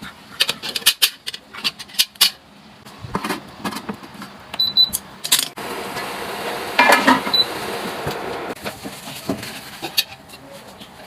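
Dishes and utensils clinking and knocking in a run of light strikes, followed by a steady hiss from about halfway through.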